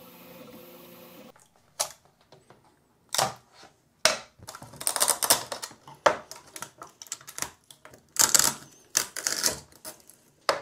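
A Prusa i3 MK3S 3D printer's stepper motors hum with several steady tones for about the first second. After that comes an irregular run of sharp snaps, crackles and scrapes as PLA support material is pried and pulled off a printed part with a metal pick and pliers.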